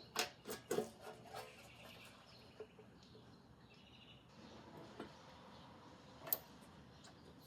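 Light clicks and taps of an antique Kodak Brownie box camera's parts being handled and fitted back into place: several in the first second and a half, a small tap about five seconds in, and one sharper click a little after six seconds.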